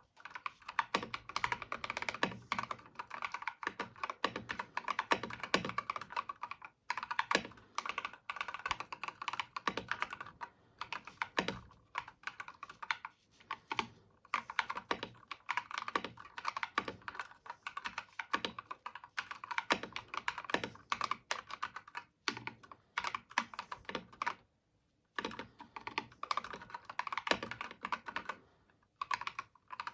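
Typing on a Redragon Surara mechanical keyboard fitted with Akko CS Wine Red linear switches and PBT keycaps: a fast, continuous run of clacky, poppy keystrokes, broken by a few short pauses.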